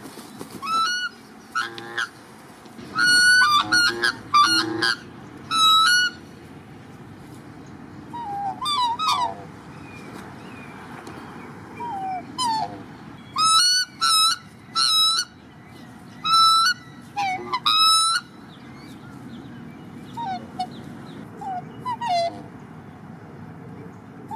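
Black swans calling: a series of short, high-pitched honking calls, some in quick clusters, with softer lower calls in between.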